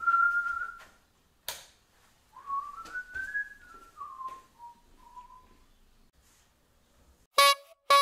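A man whistling a tune in two wavering phrases, with a sharp click in the short gap between them.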